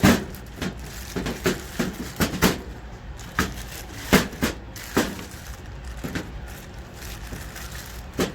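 Packaging of a replacement dryer timer being handled: irregular rustles, clicks and knocks as the box is opened and the part is worked out of its plastic bag.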